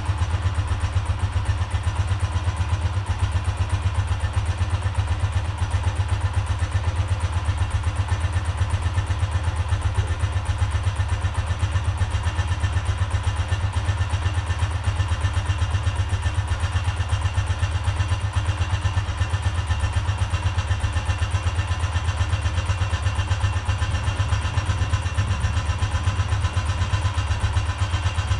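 Honda CGL 125's single-cylinder four-stroke engine running steadily at idle, with an even, rapid exhaust beat.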